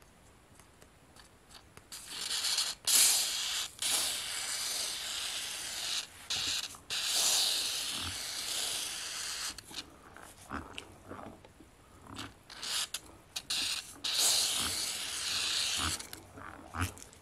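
Aerosol can of thick adhering grease spraying onto the steel gears of a rhombic-drive Stirling engine, meant to quiet the noisy gears. One long spray of several seconds with brief breaks, a few short squirts, then another spray of about two seconds near the end.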